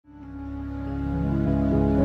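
Opening of a slowed-and-reverb edit of a song: sustained low chords fading in from silence and growing steadily louder, with a change of notes about one and a half seconds in and no voice yet.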